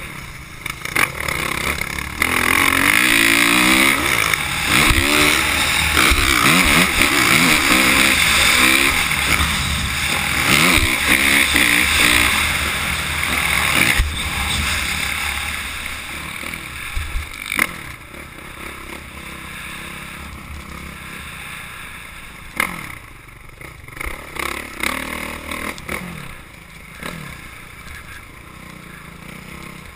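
Dirt bike engine revving hard, its pitch rising and falling through the gears, heard from a camera on the bike along with rushing wind and rattle over the bumps. About halfway through it gets quieter, with only a few short bursts of throttle.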